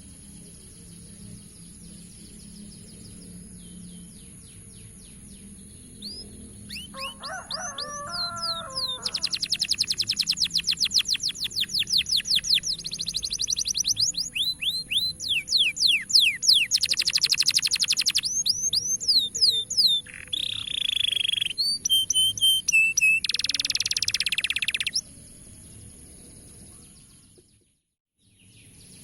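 Canary singing: after a quiet start, loud fast trills and rapid runs of sweeping chirps, broken into bursts, die back down near the end. A thin steady high tone runs under the song.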